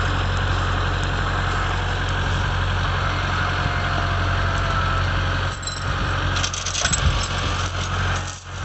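Vehicle engine idling steadily, with a few metallic clanks and rattles about five and a half to seven seconds in, which fit a recovery chain being unhooked.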